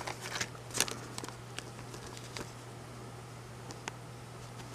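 Clear plastic sticker packets being handled, making a few quiet crinkles and light taps with pauses between them, over a steady low hum.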